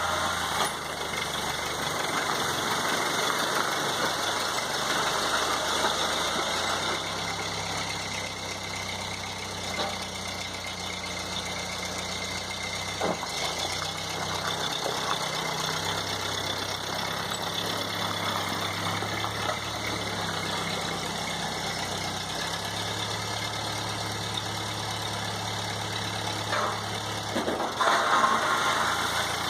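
1952 Ford 8N farm tractor's four-cylinder engine running, its speed stepping up and down several times as it works.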